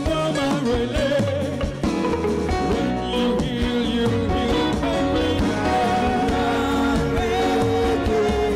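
Live gospel praise music: a lead singer and backing vocalists singing over a band that plays without a break.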